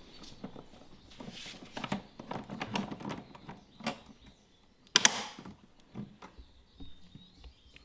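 Metal handle tubes of a lawn spreader being slid together and handled during assembly: scattered light clicks and taps, with one sharp double click about five seconds in.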